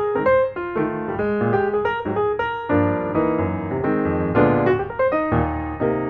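Background music: a piano playing a quick run of notes.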